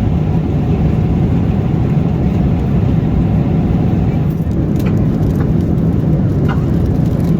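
Steady low rumble of engine and airflow noise inside the cabin of a Boeing 777-300ER airliner.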